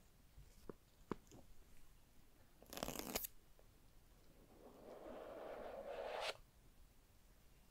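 Scalpel slitting the clear seal tab on a Google Pixel 6 cardboard box: a few light ticks, then a short loud tearing rasp about three seconds in. About two seconds later comes a rising rubbing hiss of cardboard sliding on cardboard, which cuts off abruptly.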